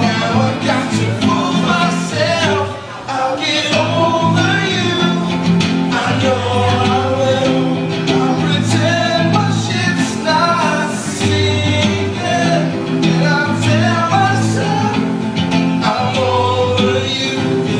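A song with singing over guitar and a steady, repeating bass line.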